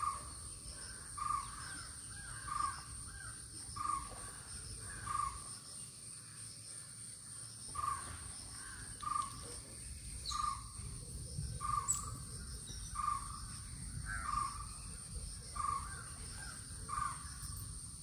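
A bird calling over and over, a short note about every second and a half with a brief pause midway, over a steady high drone of insects.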